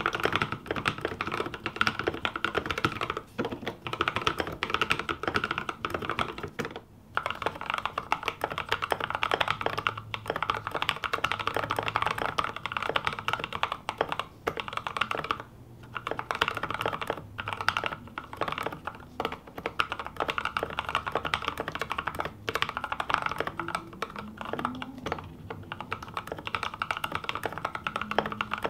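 Fast, continuous typing on a custom 60% mechanical keyboard with Novelkeys x Kailh Cream linear switches on an aluminium plate in a bamboo case: a dense stream of keystroke clacks with a few brief pauses. For most of it the keyboard sits on a cloth mat.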